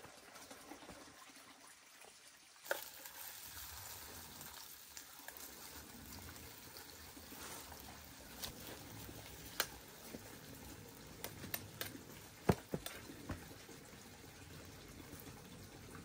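A small pan on an open wood fire, with a faint steady sizzling hiss and scattered sharp pops and crackles from the burning wood and hot pan. The sizzle starts about three seconds in.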